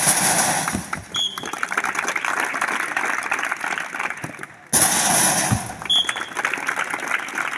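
A crowd of seated students clapping and cheering for tumbling runs, a dense clatter of hand claps that cuts back in suddenly a little before five seconds in. A short high tone sounds about a second in and again about six seconds in.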